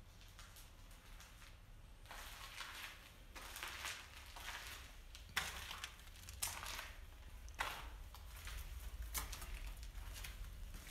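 Footsteps crunching over dry leaves and rubble on a concrete floor. Irregular crunches start about two seconds in, with a few sharper cracks among them.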